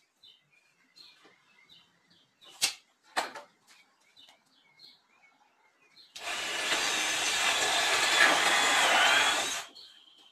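Power drill running under load into a pine frame for about three and a half seconds, starting about six seconds in and stopping abruptly. Two sharp knocks come earlier.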